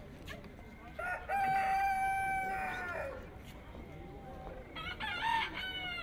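A rooster crowing: one long held call starting about a second in that drops in pitch at its end. Near the end comes a shorter, wavering call.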